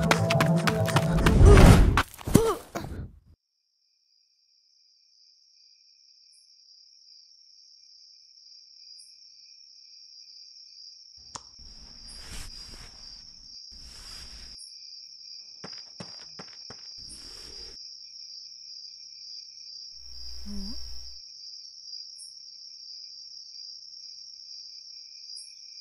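Dramatic score that ends on a loud hit about two seconds in, then a short silence, after which a steady high cricket chirring fades in as night ambience. Scattered scuffing footsteps and rustling come in the middle, and near the end a brief low vocal sound comes with a thud.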